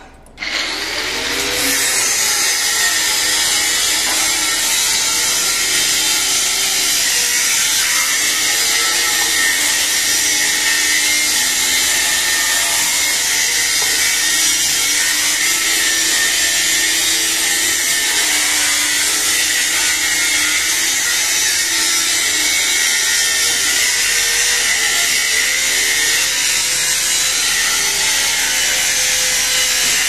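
Angle grinder with an abrasive cut-off wheel starting up about half a second in, then running steadily as it cuts through steel rebar, its pitch wavering as the wheel bites into the bars.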